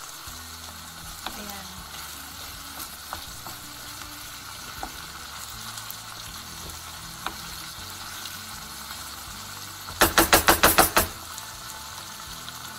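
Pork, tomatoes and onions sizzling in a frying pan as a wooden spoon stirs them, with scattered light clicks of the spoon against the pan. About ten seconds in comes a quick run of about seven sharp knocks.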